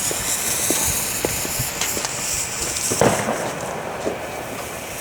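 Firework fountain hissing steadily, with scattered sharp crackles and pops. The hiss slowly weakens as it burns.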